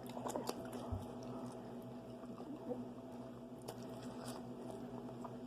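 Faint eating sounds, with small wet clicks and ticks of chewing and handling food, over a steady low electrical hum; one brief low thump about a second in.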